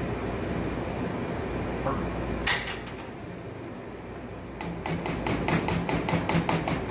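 Immersion blender motor running, then switched off with a sharp click about two and a half seconds in. Near the end, a quick run of about a dozen taps as the blender's shaft is knocked against the rim of a plastic container to shake off the sauce.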